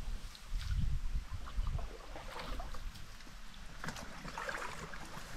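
Dry reeds rustling and scraping as a loaded canoe is pushed through them, with scattered crackles of stalks brushing the hull and the paddlers over a low rumble.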